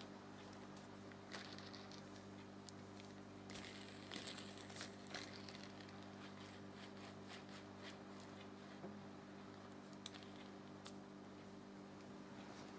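Faint metallic clicks and clinks from a threaded rod axle carrying nuts and disc magnets as it is handled, a cluster of them a few seconds in, some with a short high ring. A steady low hum runs underneath.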